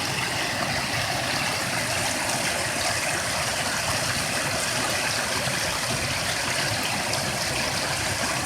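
Steady rush of water from a small waterfall and the creek below it.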